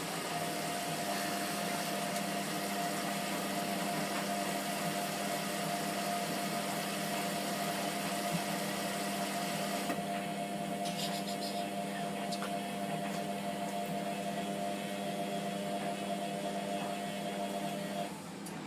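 Hotpoint Aquarius WMF720P washing machine drawing in water at the start of a wash: a steady hiss of water with a hum from the machine. The hiss stops about 18 seconds in.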